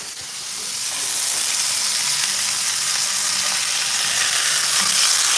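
Eggs and a slice of meat sizzling in oil in a frying pan, worked with a fork. The frying hiss swells about a second in and then holds steady.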